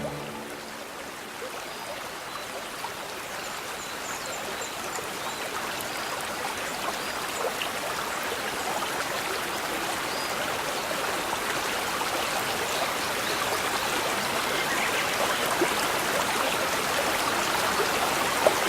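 Small brook babbling: water running over stones in a steady rush with small trickles and splashes, growing a little louder through the stretch.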